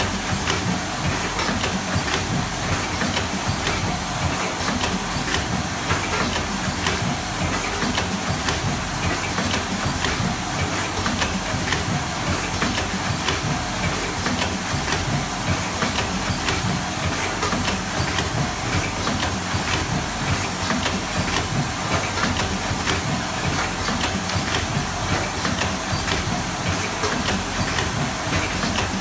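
Automatic triangle nylon mesh tea bag packing machine running continuously: a dense clatter of mechanical clicks over a steady hiss.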